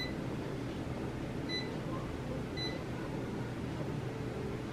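Electric range's touch-control panel beeping as timer keys are pressed: three short, high beeps spaced a second or so apart.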